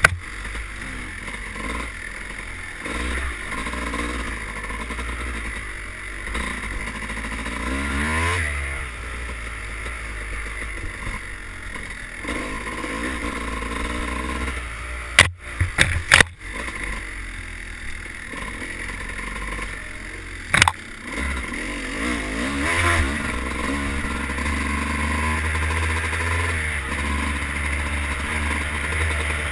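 Dirt bike engine heard through a helmet-mounted camera, its pitch rising and falling as the rider works the throttle along a rough trail. Three sharp knocks are the loudest sounds: two close together about halfway through and one about five seconds later.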